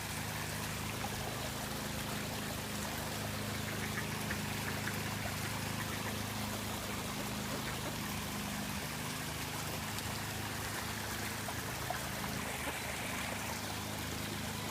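Steady sound of running water, with a low steady hum underneath.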